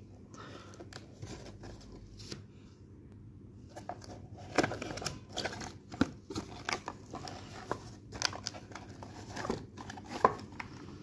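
A cardboard box being opened and handled by hand: scattered rustles, scrapes and small knocks of cardboard and packing. The handling is quiet at first and gets busier from about four seconds in.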